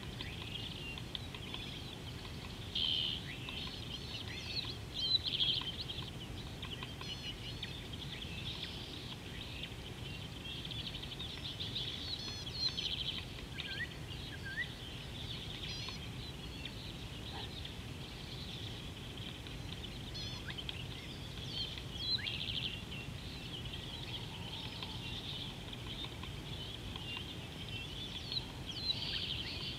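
Many wild birds calling at once, a busy mix of short chirps, trills and quick whistled glides, with a few louder flurries, over a steady low rumble.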